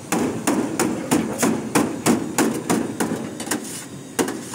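Two steel cleavers chopping shaved shawarma chicken on a flat steel tray: fast, uneven strikes of steel on steel, about three a second. The strikes pause briefly near the end.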